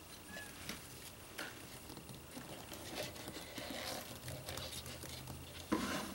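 Small scrapes and ticks of a wooden stir stick against a can and wet two-part expanding foam while the foam is poured and spread, with one louder knock near the end.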